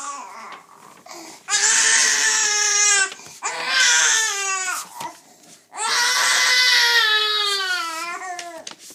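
A five-month-old baby crying: three long wails, each falling in pitch toward its end, the last the longest.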